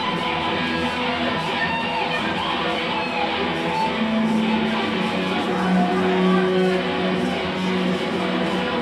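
Live band playing amplified rock, led by a strummed electric guitar.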